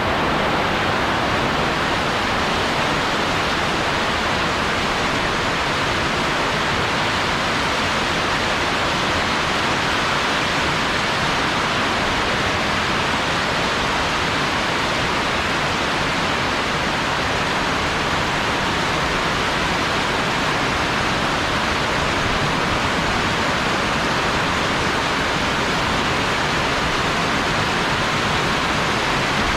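Heavy rain pouring down in a dense, steady hiss with no let-up.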